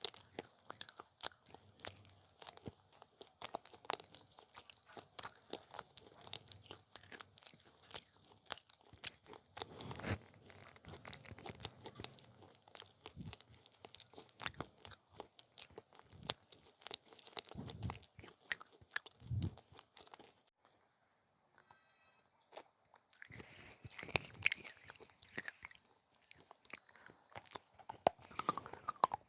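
Baked clay pieces being bitten and chewed close to the microphone: dense, sharp crackling crunches. The crunching stops for about two seconds about two-thirds of the way through, then starts again.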